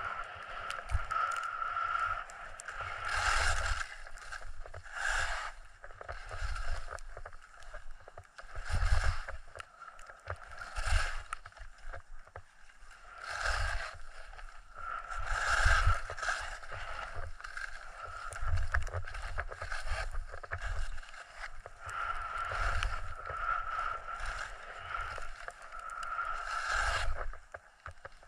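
Skis sliding and scraping over packed snow on a steep run, with a hissing swish at each turn about every two seconds. Low rumbling gusts of air rush over the microphone along with the turns.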